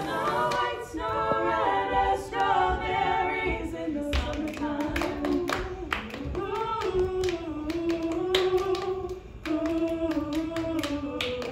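Several voices singing a cappella in harmony, the notes stepping up and down. About four seconds in, a quick tapped or clapped beat joins them.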